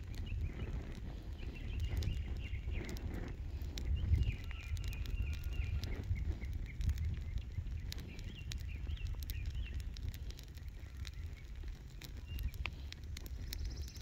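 Rubber welcome mat burning, the fire crackling with scattered sharp pops, over a steady low wind rumble on the microphone.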